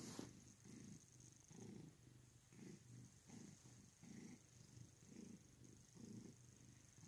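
Long-haired tabby cat purring faintly, the low rumble swelling and fading with each breath, a little more than once a second.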